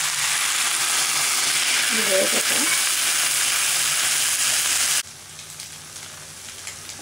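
Okra frying in hot oil in a pan, sizzling loudly and steadily as water is poured in. The sizzle cuts off abruptly about five seconds in, leaving a much quieter hiss with faint crackles.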